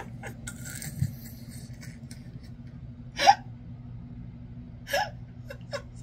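Two short vocal sounds from a person, like gasps or hiccups, about a second and a half apart, over a steady low hum, with a soft thump about a second in.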